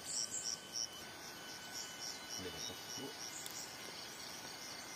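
Insect chirping in a steady, even pulse, about three high chirps a second, with a brief faint voice in the middle.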